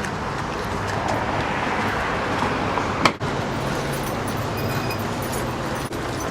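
Steady vehicle and road-traffic noise: an even low rumble with hiss, with a brief break about three seconds in.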